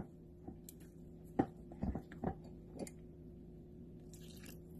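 Silicone spatula stirring thick muffin batter in a glass bowl: a few soft, wet squishing strokes and light knocks against the glass. About four seconds in, liquid is poured into the batter from a glass measuring cup.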